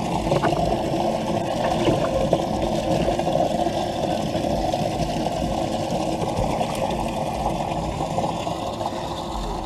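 Steady rush of running water with a pump's hum, as from a bass boat's livewell pump circulating water, with a few light clicks.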